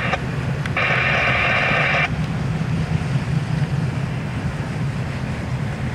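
Freight train of autorack cars rolling past with a steady low rumble. About a second in, a railroad scanner radio gives a burst of static lasting just over a second.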